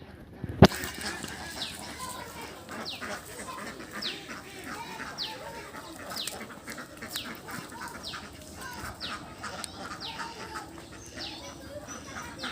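Ducks calling: a high peep that falls in pitch repeats about once a second over a busy background of other calls. There is one sharp click about half a second in.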